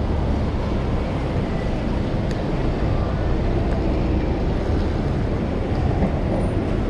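Steady, low rumble of city street noise.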